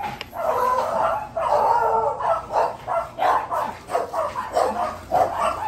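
Border collie yipping and whining in a rapid, irregular run of short, high calls.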